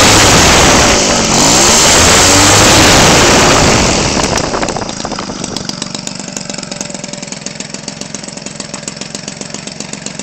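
Homelite 25cc two-stroke engine, converted for RC airplanes, swinging a propeller on a test stand: it runs loud at high throttle, then is throttled back about four seconds in to a steady idle with evenly spaced firing pulses.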